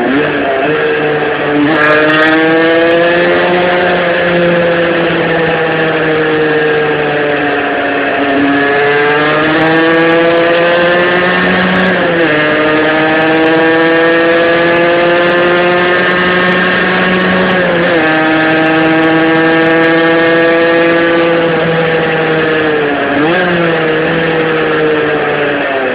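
Tuned 50cc two-stroke engine of a Rieju RS2 Matrix, with a cast-iron Top Perf kit and a 21 mm Dell'Orto carburettor, running hard through a homemade exhaust with a Conti silencer. Its pitch climbs slowly and drops sharply several times.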